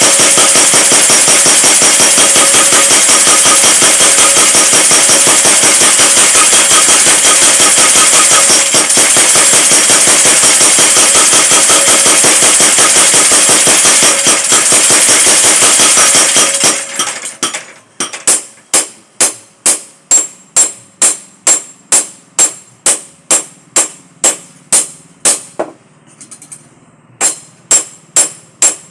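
Power hammer pounding metal in a fast, unbroken run of blows, then slowing to single sharp, ringing strikes about two a second for the second half, with a brief pause near the end.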